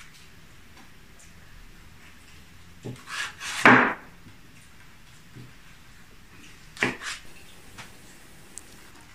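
A kitchen knife cutting through the rind of a whole baked pumpkin: a few short scraping strokes about three seconds in, the loudest near four seconds, and two more short strokes about seven seconds in.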